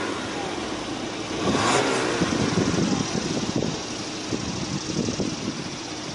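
Exhaust of an Audi A4's 2.0-litre turbocharged four-cylinder engine running, heard at the dual tailpipes, with a brief louder swell about one and a half seconds in.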